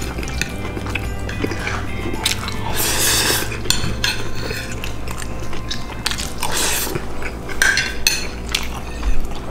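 A metal fork clinking and scraping on a dinner plate, over steady background music.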